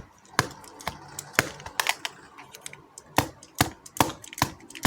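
Plastic TV remote control being hit over and over, making sharp hard clicks and knocks at uneven spacing, about two a second.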